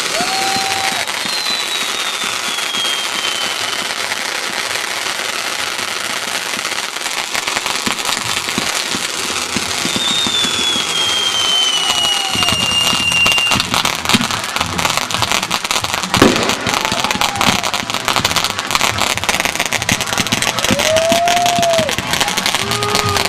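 Backyard fireworks finale: fountains hissing, with long whistles falling in pitch. From about halfway it builds into a rapid barrage of crackles and pops from small rockets and crackling stars, with one loud bang about two-thirds of the way in.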